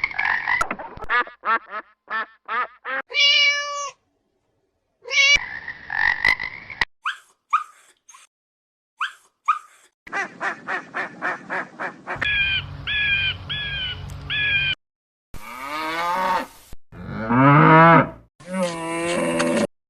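A string of short clips of animal calls, cut one after another with sudden breaks between them. There are runs of short repeated pitched calls, and near the end longer calls that slide in pitch.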